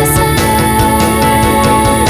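Background music: an upbeat instrumental track with a steady beat.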